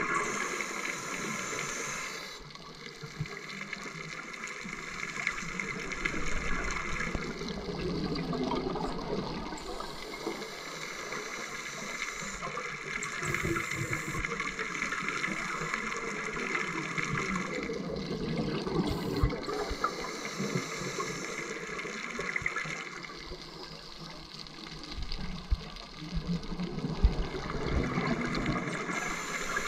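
Underwater ambience with scuba divers' regulators breathing out, their exhaled bubbles rushing and gurgling in bursts several seconds apart.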